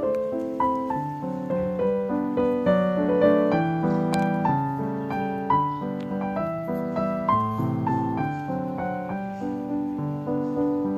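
Background piano music: a melody of short struck notes over lower chords, several notes a second.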